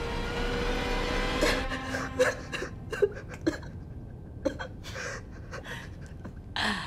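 Young man crying: sobbing with short, irregular gasping breaths. A steady background hum fades out about a second and a half in.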